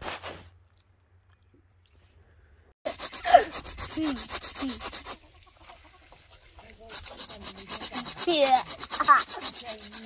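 Fast, even scraping strokes of a knife blade across raw goat tripe, in two stretches of a couple of seconds each: the first about three seconds in, the second from about seven seconds.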